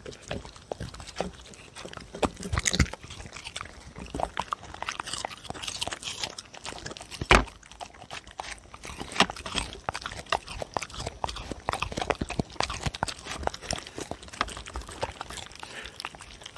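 Two dogs chewing and crunching slices of Korean melon (chamoe), a steady run of irregular wet clicks, with one louder knock about seven seconds in.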